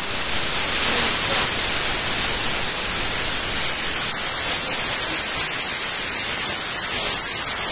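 Steady, loud static hiss like white noise, starting and cutting off abruptly, with a faint high whistle coming and going in it.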